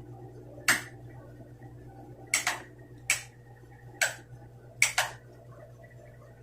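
Hand-held signal flags being whipped through the air, making about seven short, sharp snaps and swishes at irregular intervals, two of them in quick pairs, over a steady low hum.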